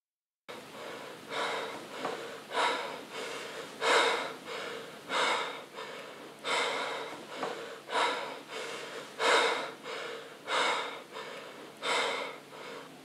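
A young man breathing heavily and hard through an open mouth, loud gasping breaths in and out, the louder ones about every second and a half. It starts about half a second in, after a moment of silence.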